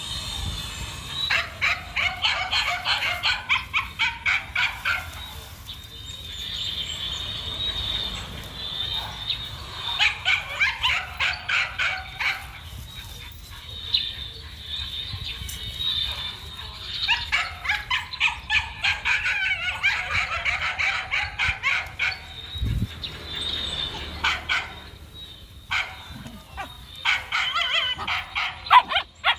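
Dog barking in rapid runs of sharp, high barks, about four a second, in several bursts a few seconds long with short pauses between.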